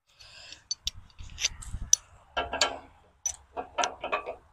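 Irregular metallic clicks, knocks and scrapes from a tractor's three-point-hitch top link and its pin being handled with gloved hands at the bracket. A soft rustle comes just after the start.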